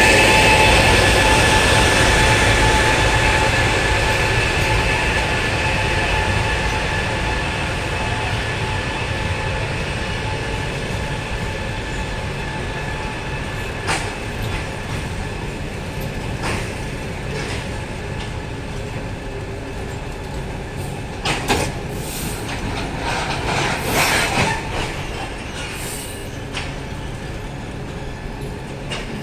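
A passenger train's coaches roll past slowly as it brakes into a station, the rolling noise gradually dying down as it slows. The EP20 electric locomotive's whine fades over the first few seconds. Later the wheels give a few sharp clacks over rail joints and short squeals.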